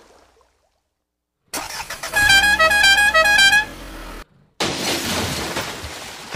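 A musical vehicle horn plays a quick tune of short beeping notes on two alternating pitches. About a second later comes a splash as a toy auto-rickshaw lands in the water, fading out.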